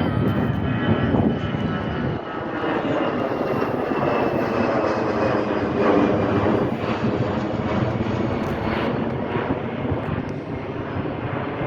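Airbus A320 jet airliner taking off, its twin engines at take-off thrust: loud, steady jet noise with thin high whines that slowly fall in pitch as it passes.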